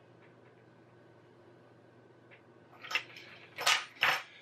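Faint steady room hum, then short handling noises near the end of a phone repair at the bench: a click followed by two louder brief scuffs, as tools and parts are picked up.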